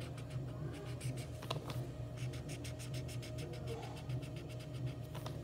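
Felt-tip Crayola marker scrubbing back and forth on paper as an area is coloured in: a quick run of short scratchy strokes, densest in the middle, over a steady low hum.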